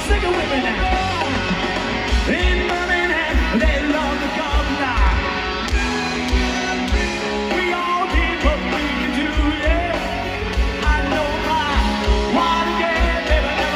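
Live rock band playing loud through a festival PA, with electric guitars, drums on a steady kick-drum beat and a male lead vocal, heard from among the crowd.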